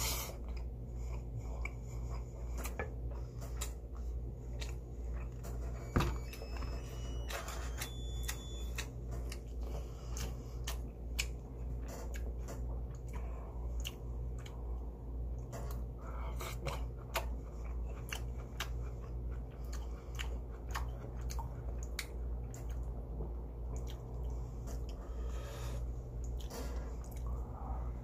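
A person eating pork galbi and rice up close: chewing, with frequent sharp clicks through the whole stretch, over a steady low hum.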